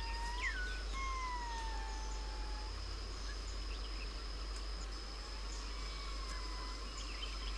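Ring-tailed lemurs' drawn-out, cat-like mewing contact calls: a few long calls, each slowly falling in pitch, the clearest about a second in. A steady high-pitched drone continues underneath.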